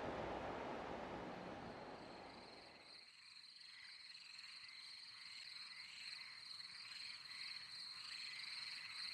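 Faint swamp soundscape: a chorus of chirring frogs and insects with a steady high whine, pulsing slowly. It takes over as a low outdoor hiss fades out about three seconds in.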